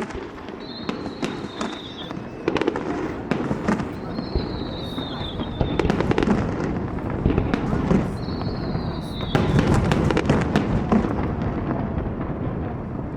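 Fireworks going off in quick succession, with sharp bangs and crackling. A high whistle sounds three times, each about a second long and dipping slightly in pitch, under a crowd's voices.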